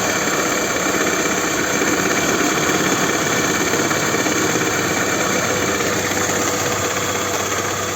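Toyota Camry 2.4 L 2AZ-FE four-cylinder engine idling cold with the transmission in Drive, running steadily with a dull knock from underneath, which the mechanic takes for the balance shaft.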